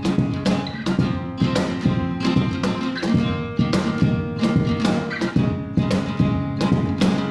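Acoustic guitar strumming chords in a steady rhythm, an instrumental passage of a song with no singing.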